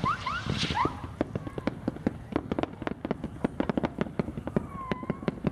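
Hand-made strobe rockets being fired: a few short rising whistles in the first second, then a rapid, irregular run of sharp pops and crackles.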